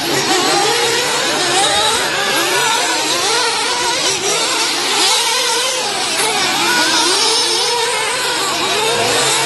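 Several 1/8-scale nitro RC truggies' small two-stroke glow engines revving together. Their high pitches overlap, climbing and dropping again and again as the cars accelerate and brake through the turns.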